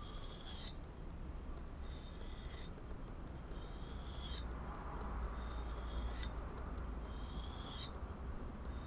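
Mora Classic knife blade drawn lightly along a Lidl diamond sharpening rod: a short, high scraping stroke about every two seconds, five in all, each ending in a brief sharper scrape as the edge leaves the rod. These are light-pressure honing strokes putting a microbevel on the knife's Scandinavian grind. A steady low rumble runs underneath.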